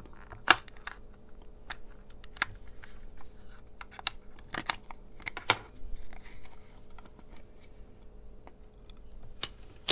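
The snap-fit plastic case of a pocket radio clicking and snapping as its halves are prised apart with a coin: a sharp snap about half a second in, more snaps a little after four and a half and five and a half seconds, and small clicks and scrapes between.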